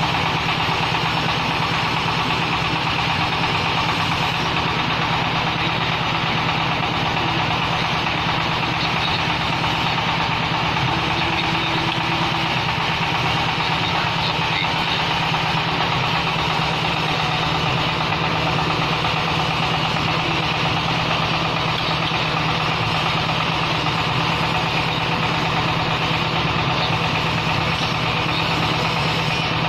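Engine of a concrete-block press machine running steadily with a fast, even pulse, unchanging throughout.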